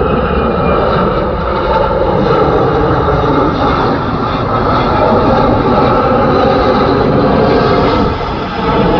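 Engine noise of a large aircraft making a low pass overhead, loud and steady, easing off briefly near the end.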